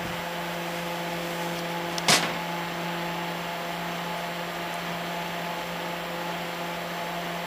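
Noctua NF-F12 PWM 120 mm case fan running, a steady hum with a few steady tones. A single sharp click about two seconds in.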